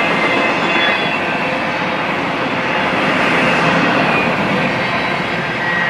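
Double-stack intermodal well cars of a BNSF freight train rolling past: a steady noise of steel wheels on rail, with a few faint high-pitched tones over it.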